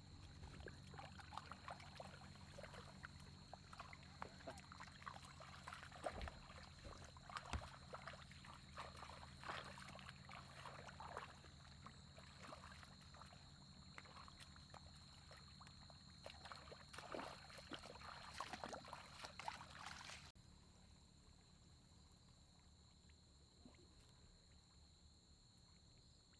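Faint, irregular sloshing and splashing of people wading in shallow muddy paddy water, over a steady high insect drone. The splashing stops about twenty seconds in, leaving only the insects.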